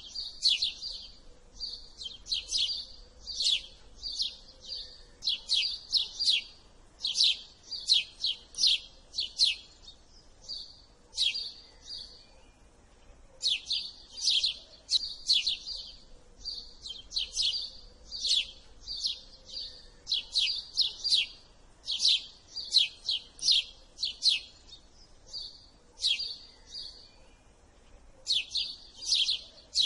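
House sparrow chirping over and over: quick runs of short, high chirps with brief breaks, the longest about twelve seconds in and again near the end.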